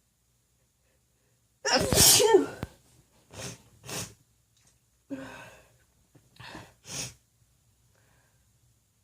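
A woman sneezing once, loud and unmuffled, about two seconds in; the sneeze is brought on by tickling her nose with a feather. Five short, quieter breaths follow over the next five seconds.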